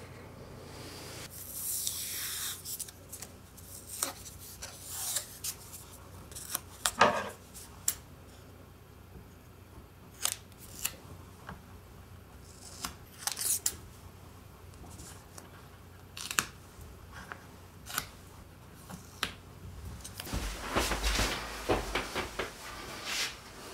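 Scissors snipping in short, separate cuts, a sharp click now and then, with paper rustling. Near the end comes a denser burst of rustling and handling noise with a few low knocks.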